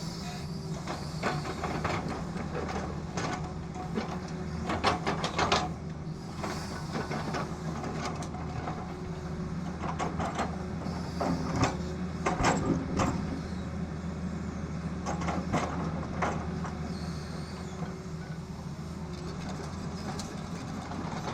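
Tata Hitachi excavator's diesel engine running steadily, with repeated clusters of knocks and rattles from the machine working.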